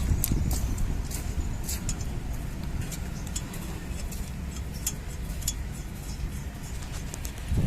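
Car on the move: a steady low road rumble with scattered light clicks and ticks over it.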